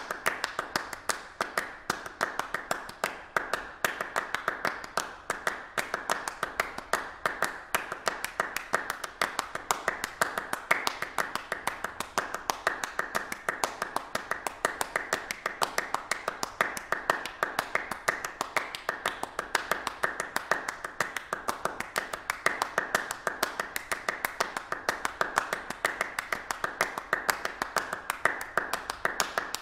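A group of people clapping their hands: a dense, even stream of sharp claps with no pause.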